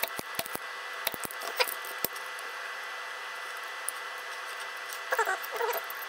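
Spring-loaded desoldering pump used to suck solder off the legs of a smoke detector's piezo beeper: a run of sharp clicks and snaps in the first two seconds as it is handled and fired, then a short squeaking near the end.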